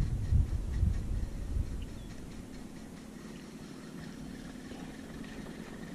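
Wind rumbling on the camera microphone aboard a kayak, in uneven low gusts that die down after about two seconds to a quieter steady background.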